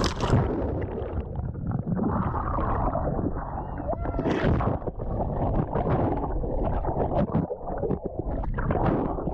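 Muffled underwater churning and bubbling, picked up by a microphone under the sea surface, with the upper sounds cut away.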